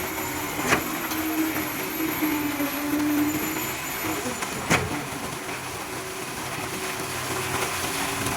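A construction-site machine engine running steadily, with two sharp knocks, one about a second in and one near five seconds.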